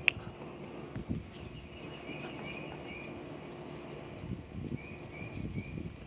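A bird calling: two runs of three short chirping notes, about three seconds apart, over faint outdoor background with a few soft thumps.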